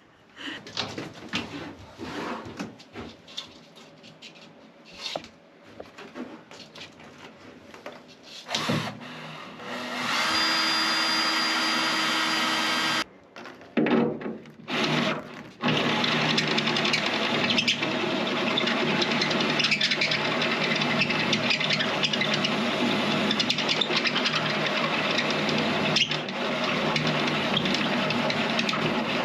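Knocks and clatter of wood and tools being handled, then a handheld power tool running: a steady whine for a few seconds about a third of the way in, a couple of short starts, and from about halfway it runs on steadily under load.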